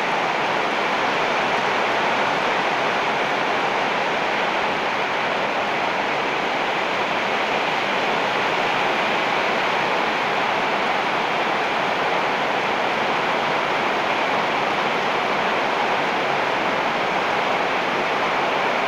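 Heavy rain falling steadily on palm and banana leaves: an even, unbroken hiss.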